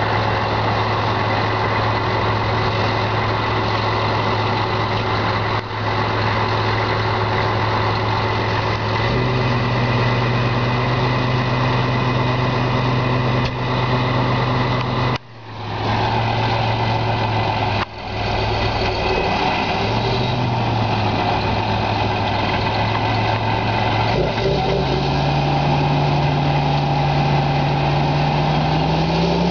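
Large John Deere tractor's diesel engine idling steadily, its pitch stepping up a little about nine seconds in, with a brief break around halfway. Over the last few seconds the engine speed rises steadily as it revs up.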